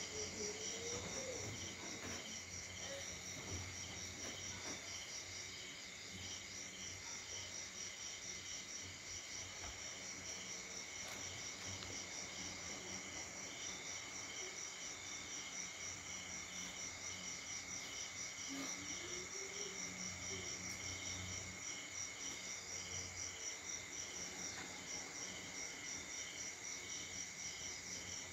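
Crickets chirping in a steady, rapidly pulsing chorus, with a steady high whine beneath.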